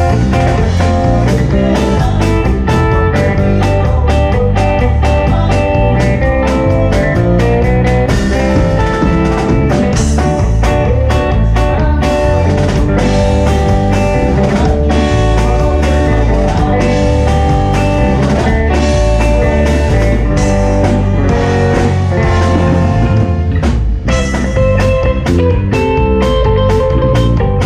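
A live band playing a ranchera through the stage PA, with electric guitar over a steady beat.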